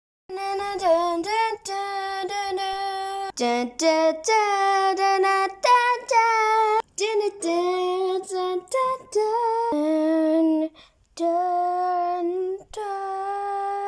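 A child singing a tune of long held notes with short breaks between phrases, with no accompaniment.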